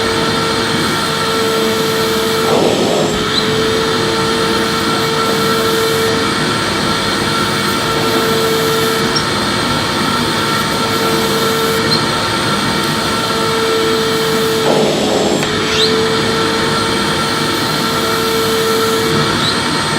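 Vacuum cleaner running steadily, with a constant motor whine over a wide rushing noise. The sound shifts briefly twice, about three seconds in and again near fifteen seconds, as the vacuum is moved across the floor.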